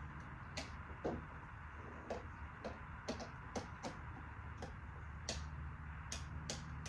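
Light clicks and taps at uneven intervals, about two a second, over a faint steady hum.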